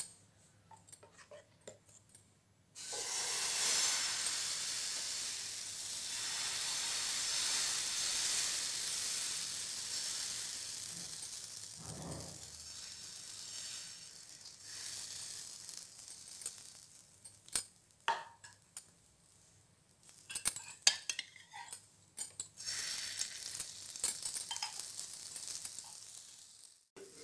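Gram-flour omelette batter sizzling on a hot oiled pan: a loud sizzle starts suddenly about three seconds in as the batter hits the pan and slowly dies down. In the second half a softer sizzle runs on under scattered clicks and taps of a steel ladle against the pan.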